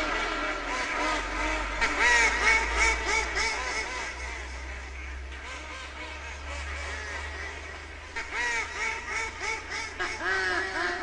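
Ducks quacking in a rapid, overlapping chorus, thickest about two seconds in and again from about eight seconds on, thinner in between, over a low steady hum.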